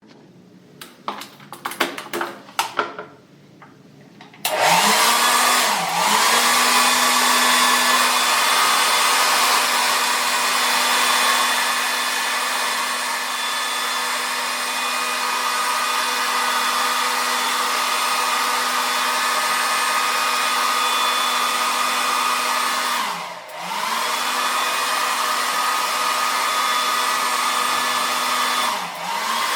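A few short clicks and knocks, then a hair dryer switches on about four seconds in. It runs steadily with a motor hum and rushing air, and three times its motor briefly sags and spins back up.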